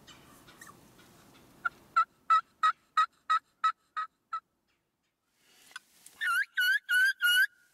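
Wild turkeys yelping. A run of about nine evenly spaced yelps, about three a second, fades off, and after a pause about four louder, higher yelps come near the end.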